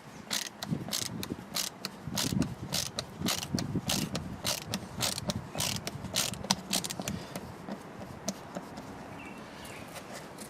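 Ratchet screwdriver with a T20 Torx bit clicking as it backs out the screws holding the Velcro sanding pad on a Dewalt orbital sander, about four clicks a second. The clicks thin out and fade after about seven seconds.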